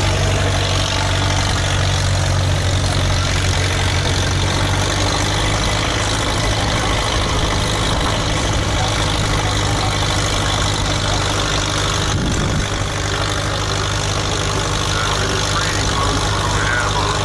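Port Huron steam traction engine running steadily under load, belt-driving a sawmill through a long flat belt and line shaft: a continuous mechanical drone with a strong low hum.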